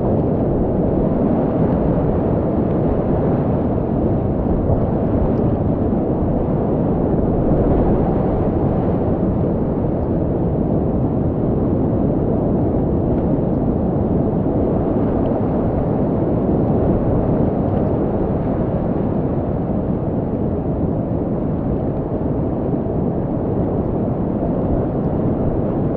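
Steady, loud rush of whitewater rapids in a river at high flow, heard from a kayak in the middle of the rapid.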